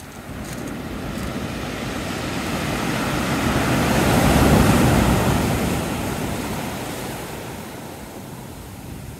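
Sea wave surging in and breaking on the shore, swelling to a peak about halfway through and then fading away as it draws back.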